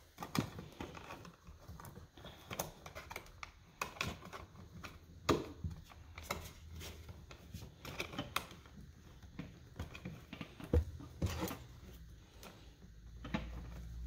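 Irregular light clicks, taps and rustles of stiff electrical wires and plastic lever-type wire connectors being handled and pushed into a plastic electrical box.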